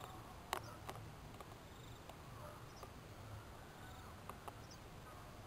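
Faint outdoor field ambience: a low steady hiss with a few short high chirps and several sharp clicks, the loudest click about half a second in.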